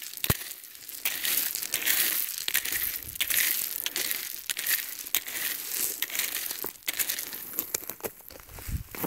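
Small metal hand rake scraping through a pile of gravel, the stones crunching and clicking against each other, with a low thump near the end.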